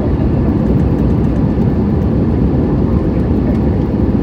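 Steady, low-pitched cabin noise of an Airbus A320ceo in flight on approach, heard beside the wing and engine.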